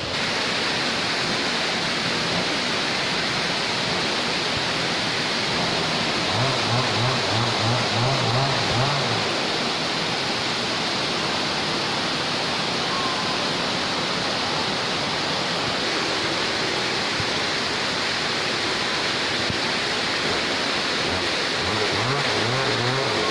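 Waterfall: a steady, dense noise of falling water.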